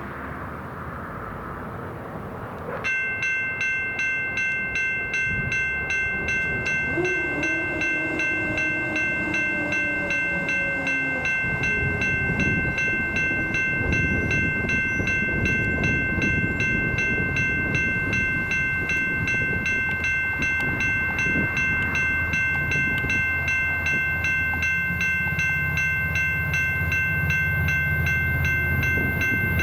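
Grade-crossing warning bell starts ringing about three seconds in, a steady ringing pulsing about twice a second, as the crossing activates for an approaching Amtrak San Joaquins train. A distant horn sounds for about four seconds near the middle, and the low rumble of the approaching train grows near the end.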